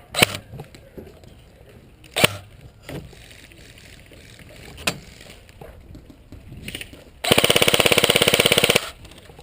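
A few single sharp shots or hits, then an airsoft gun firing a full-auto burst near the end: a rapid, even rattle lasting about a second and a half.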